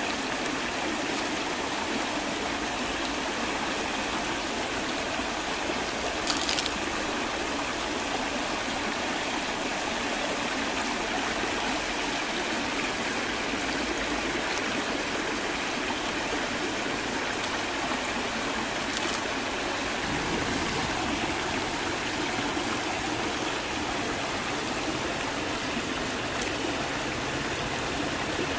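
A shallow rocky stream rushing steadily over stones, a constant watery hiss. A single brief sharp click sounds about six seconds in.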